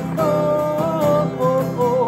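Man singing along to a strummed acoustic guitar, the voice holding and bending sung notes over steady chord strumming.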